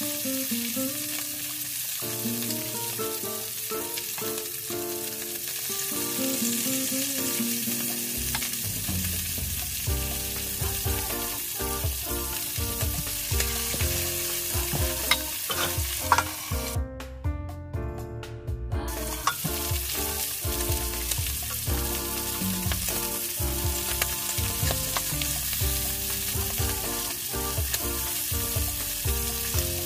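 Fish fillets sizzling steadily as they fry in hot oil in a frying pan, with a spatula turning them near the end. The sizzle drops out briefly for about two seconds past the middle.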